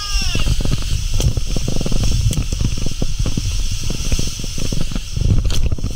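Rider's tube sliding down an enclosed water slide: rushing, spraying water over a continuous low rumble, with many quick knocks as the tube bumps along the flume.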